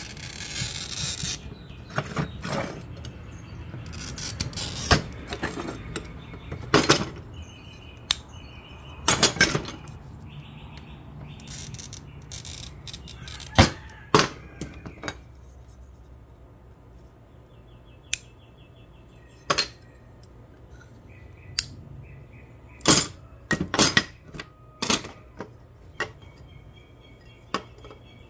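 A handheld glass cutter scoring stained glass with a scratchy hiss, then a series of sharp snaps and clinks as the glass is broken along the score and pieces are set down on the plastic grid surface.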